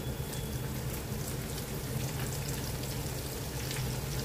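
Hot oil sizzling steadily with many small crackles as maida-batter-coated stuffed roti cones deep-fry in a kadhai.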